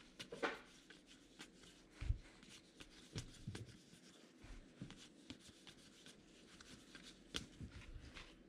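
Faint handling of baseball trading cards flipped through by hand: soft, irregular rustles and flicks of card stock, with a few light knocks.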